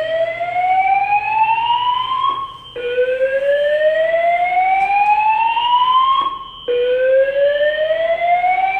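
Honeywell Notifier fire alarm speaker sounding a slow-whoop evacuation tone. It is a loud rising sweep that climbs for about three and a half seconds, cuts off briefly and starts again from low pitch, repeating.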